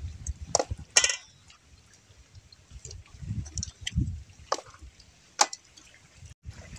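Wet eating noises, sucking and smacking at a cooked fish head, with a few sharp clicks.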